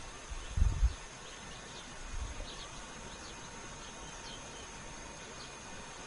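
Countryside ambience: a steady high hiss with faint short bird chirps. Low thumps of wind or handling hit the microphone just under a second in and again a little after two seconds.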